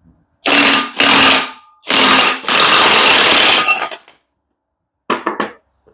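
Impact wrench hammering in four bursts on a stubborn nut of a Mazda 12A rotary engine, really loud, the last burst the longest, until the nut comes off.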